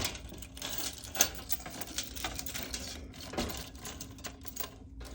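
Small metal keys clicking and jangling against each other as they are flipped through in a box of keys, in irregular quick clicks, with one sharper clack about a second in.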